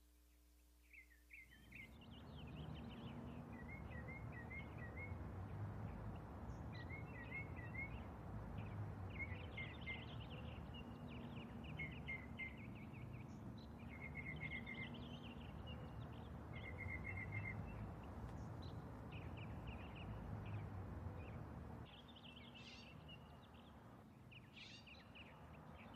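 Outdoor ambience: small birds chirping and twittering again and again over a steady low rumble, which comes in about two seconds in.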